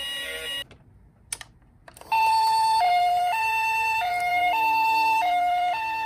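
Toy ambulance's electronic two-tone siren, the Japanese high-low "pee-po" pattern, switching between a higher and a lower tone about every 0.6 s. It starts about two seconds in, after a short quiet with a single click.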